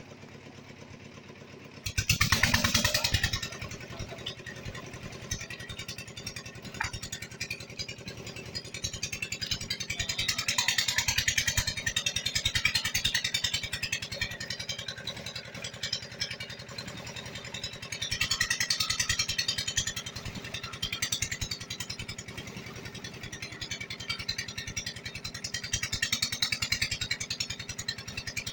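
A small engine running steadily with a rapid, even firing beat, starting about two seconds in, with a hiss that swells and fades over it.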